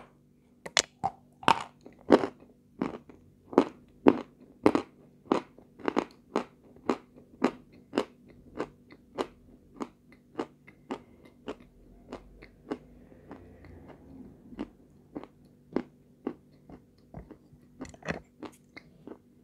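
Close-miked biting and chewing of a hard, powder-coated white chunk, a crisp crunch about twice a second. The crunches are loudest in the first few seconds.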